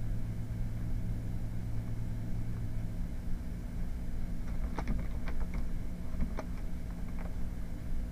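Steady low hum, with a few sharp computer keyboard keystrokes a little past halfway through as text is typed into a field.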